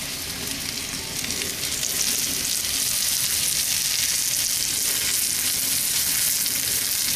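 Sliced mushrooms sizzling in hot oil in a 6-inch cast iron skillet while a spatula stirs them. The sizzle grows louder about two seconds in, then holds steady.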